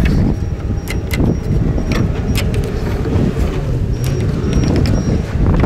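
Loud, steady low rumble with scattered light taps and clicks from a speed square and pencil being worked along framing lumber.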